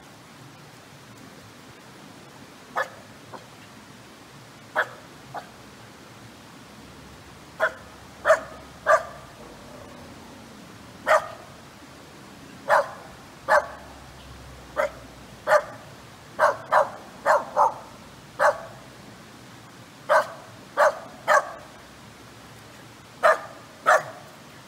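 Kai Ken dog barking repeatedly: about twenty short, sharp barks at uneven spacing, some in quick pairs and runs of three or four.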